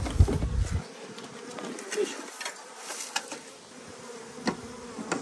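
Swarm of Western honey bees buzzing in a steady hum around hives opened to combine two small colonies. There is a brief low thud at the start and a few light knocks.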